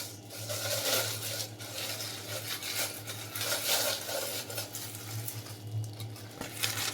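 Stainless steel cooking pot being handled and taken out of its packing: irregular rustling of wrapping with light metal knocks and clinks, over a steady low hum.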